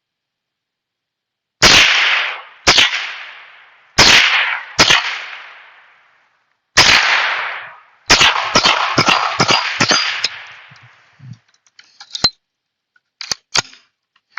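Savage Model 62 semi-automatic .22 rifle firing: five single shots a second or so apart, then a quick string of about nine shots. A few light clicks follow near the end.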